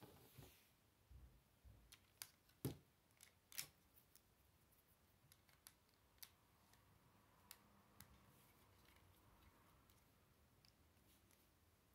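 Lego bricks being handled and pressed together: scattered soft plastic clicks and taps, the two loudest about two and a half and three and a half seconds in.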